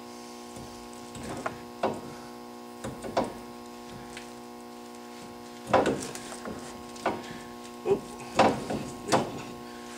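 Irregular metal clunks and clicks as parts and tools are handled at a Dana 44 front axle hub, heavier knocks bunched in the second half, over a steady electrical hum.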